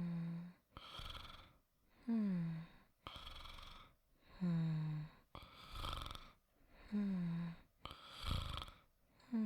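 Soft snoring performed by a voice actor, in a slow, even rhythm of about one breath every two and a half seconds. Each breath is a short throaty snore that falls a little in pitch, followed by a breathy exhale, about four breaths in all.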